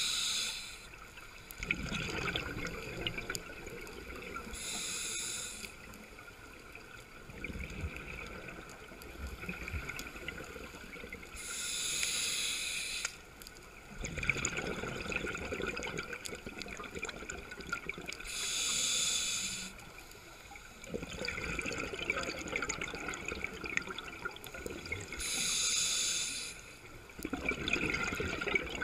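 Scuba diver breathing through a regulator, heard underwater: a short hissing inhale about every seven seconds, each followed by several seconds of bubbling exhaust bubbles.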